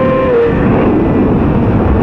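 Onboard sound of a 2007 Yamaha R6's inline-four at high revs on the straight, under heavy wind rush. About a third of a second in the throttle is shut and the engine note drops away, leaving mostly wind and road noise as the bike slows for the corner.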